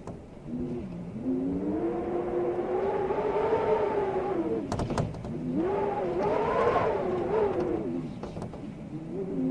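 Storm wind howling in strong gusts: a pitched moan that rises and falls in two long swells over a steady rush of air, with a few sharp clicks about halfway through.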